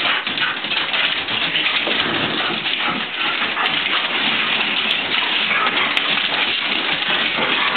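Excited dogs jumping and scrambling on a wood floor: a dense, steady patter of claws clicking and scuffling, with fur and bodies rustling.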